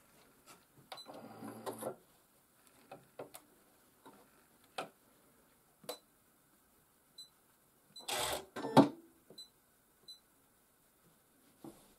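Gloved hands handling and shifting a quilt at a domestic sewing machine: scattered light clicks and short fabric rustles, with a louder rustle about eight seconds in and a few short high beeps. The machine is not stitching.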